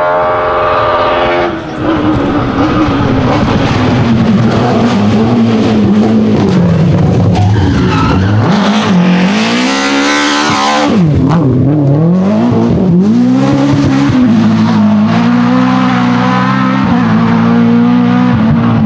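A BMW E30 M3 Group A rally car's S14 2.3-litre four-cylinder engine, loud at racing revs, its pitch repeatedly climbing and dropping through quick sequential gear changes as the car passes close by. A burst of hiss comes with the closest pass, about halfway through.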